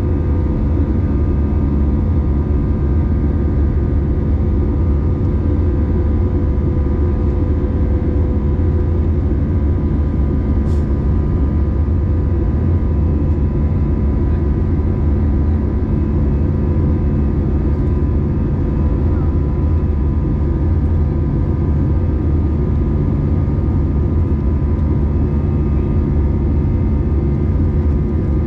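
Steady cabin noise of an Airbus A320 climbing after take-off, heard from a window seat over the wing: a deep, unbroken rumble of turbofan engines and airflow, with several steady tones from the engines running above it.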